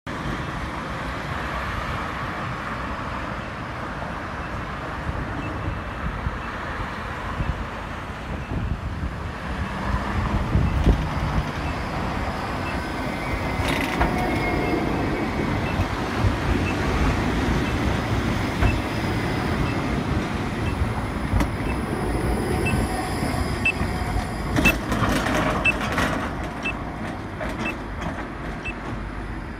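Modern articulated low-floor trams running on street track amid city traffic: a steady rumble that grows louder as a tram passes close, with wheels squealing briefly about halfway through as it takes a curve and a few sharp clanks later on. A faint high tick repeats a bit faster than once a second through much of it.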